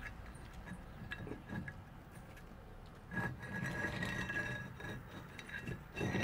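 A loose brick grating against the mortar and neighbouring bricks as it is worked out of a wall by hand: a few small clicks, then a longer gritty scrape about three seconds in, and another short scrape near the end.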